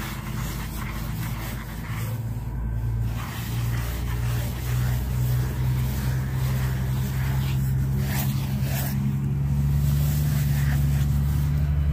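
A steady low engine hum, as of a motor idling nearby, growing gradually louder. Faint scrubbing of a rubber curry comb on a horse's coat sits underneath it.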